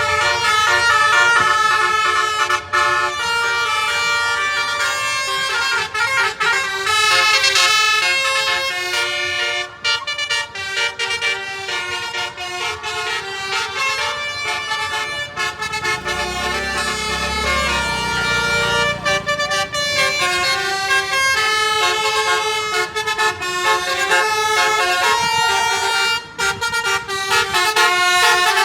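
Basuri telolet musical air horn on a bus playing a melody, its tones stepping from note to note with brief breaks. A low rumble joins for a few seconds about halfway through.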